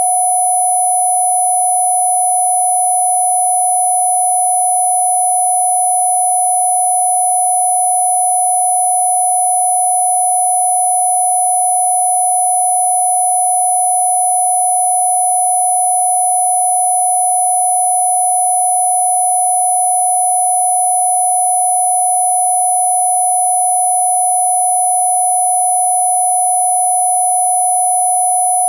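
A steady electronic sine tone held at one unchanging mid-range pitch, with much fainter steady high tones above it: a 'healing frequency' played for sound therapy.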